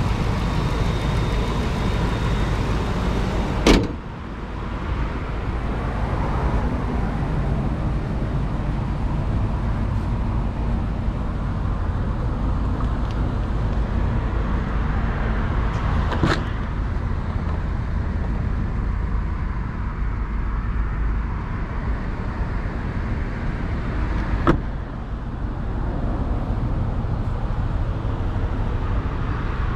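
2019 Ford F-250 pickup's engine idling steadily, a low even hum, with three sharp knocks spread through it.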